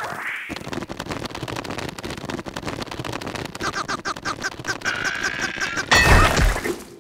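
Cartoon sound effects: a rapid crackling rattle as the animated larva strains, with its high, pulsing squeals joining past the middle, then a loud deep thump near the end as it is flung free.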